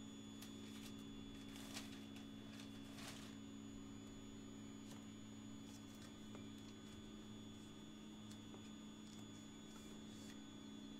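Faint steady low hum from a powered-on Anet ET4 3D printer, with two faint clicks about two and three seconds in.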